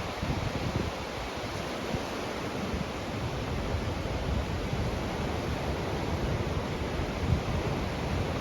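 Wind buffeting the microphone over a steady rushing noise of a stormy outdoor scene; no clear thunderclap stands out.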